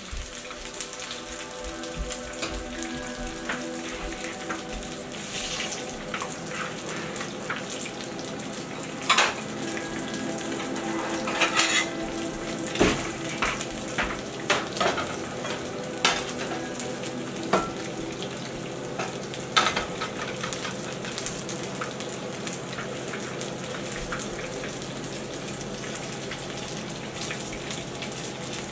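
Food sizzling as it fries in a pan. Several sharp clinks and knocks of dishes and utensils come through it, the loudest about nine and twelve seconds in.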